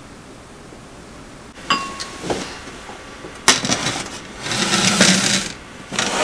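Small glass bowls clinking and knocking against a stainless steel tray as they are set down, several separate clinks, the first with a short ring, then a scrape lasting about a second and one more knock near the end.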